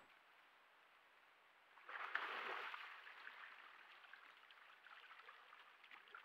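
Water splashing as a black bear moves in a shallow pool, a sudden splash about two seconds in that fades into quieter sloshing and dripping.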